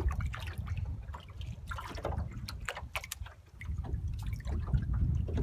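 Wind rumbling on the microphone, with small waves lapping and splashing against the hull of a small boat in irregular ticks.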